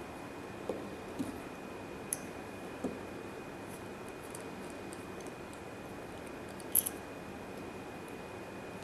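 Small metal e-cigarette atomizer parts clicking against each other and the tabletop as they are picked up and fitted together: about five separate light clicks, the sharpest about seven seconds in. Under them runs a steady hiss with a faint high whine.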